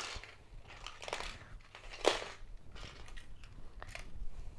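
Plastic toys and packaging being handled: scattered clicks, rustles and crinkles, with one sharper click about two seconds in.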